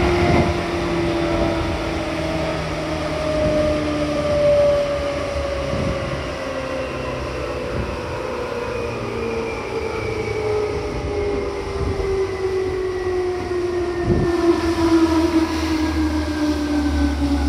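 Seibu 2000 series electric train heard from inside the car as it slows: the traction motor and gear whine falls steadily in pitch, with occasional clacks of the wheels over rail joints. Near the end a rumble rises as another train passes close alongside.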